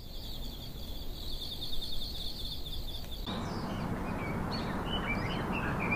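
Nighttime ambience of crickets chirping in a steady rapid trill, cutting off abruptly about three seconds in to a morning ambience of songbirds chirping over a steady outdoor rush.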